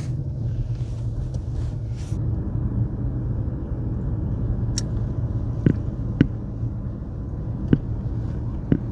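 Steady low rumble of a car driving slowly, heard from inside the cabin, with five short sharp clicks or knocks in the second half.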